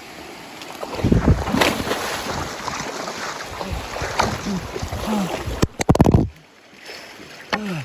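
Water splashing and sloshing as a hiker wades and clambers across a stream ford, with rough knocks and rustling loudest about six seconds in, and a few short grunts.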